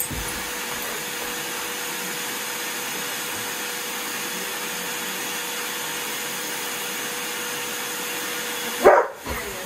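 Vacuum cleaner running steadily, a constant hum over its rushing air noise. Near the end a Bouvier des Flandres gives one short, loud bark at it.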